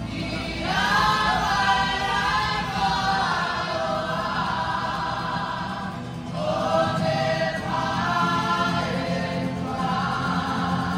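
A group of voices singing a Cook Islands song together in harmony, in phrases a few seconds long. New phrases start about a second in and again about six seconds in.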